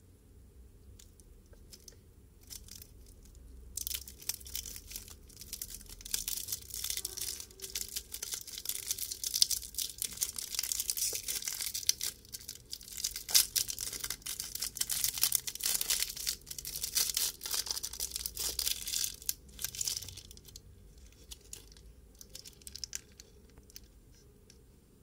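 Plastic wrapper of a Chupa Chups Melody Pops whistle lollipop crinkling and tearing as fingers twist and peel it off, a dense crackle with many sharp clicks. It starts a few seconds in and stops after about twenty seconds, with only faint handling before and after.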